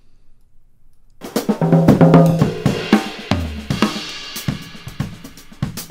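A drum kit recorded with a single overhead microphone playing back, starting about a second in: snare and kick hits under hi-hat and cymbal wash. Its boxy 400–600 Hz mids are being cut on an EQ.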